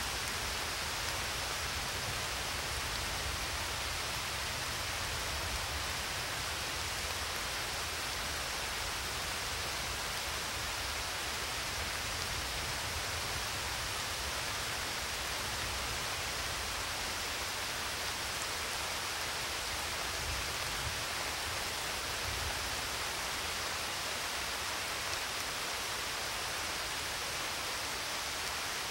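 A steady, even rushing noise like pink noise, hissy on top with a low rumble beneath.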